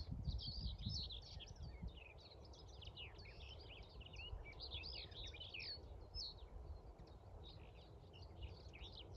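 Male common whitethroat singing, a dense run of quick warbling notes that thins out after about six seconds, with some low handling or rustling noise at the start.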